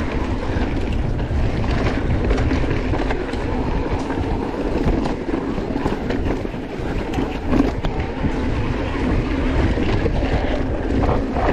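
Mountain bike rolling over a rough, rocky trail: a steady rush of tyre noise with frequent rattles and knocks from the bike, and wind buffeting the microphone.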